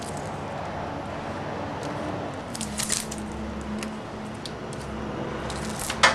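Handling noise: rustling and a few sharp clicks, the loudest click near the end, over a low steady hum in the middle.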